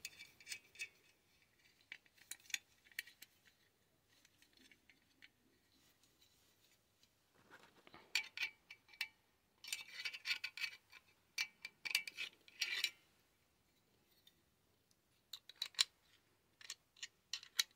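Faint, scattered metallic clicks and scrapes of a small open-end wrench working a nut on a soldering iron stand and of the stand's metal parts being handled, coming in two clusters, the second near the end.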